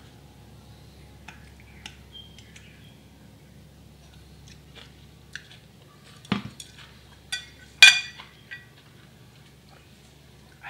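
Chopsticks tapping and clicking against a ceramic bowl: scattered light clicks, a heavier knock about six seconds in, and a louder ringing clink of the bowl about a second and a half later.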